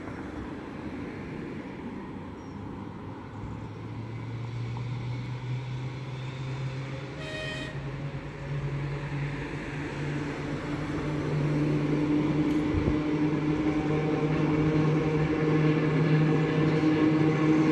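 Manx Electric Railway electric tram approaching, its motors and gearing giving a steady hum that grows louder and gains higher pitches as it nears.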